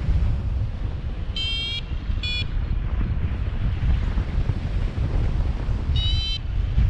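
Wind buffeting the microphone of a paraglider in flight, a heavy steady rumble. Over it, a flight variometer gives short high electronic beeps: two close together about a second and a half in, and one more about six seconds in.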